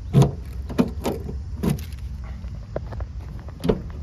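A handful of sharp clicks and clunks from the rear door of a Chevrolet Tornado van and its manual lock being worked by hand. The loudest comes about a quarter second in and another near the end, over a steady low rumble.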